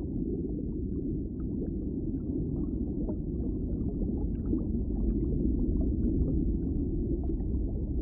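Underwater ambience: a steady low, muffled rumble with faint scattered pops.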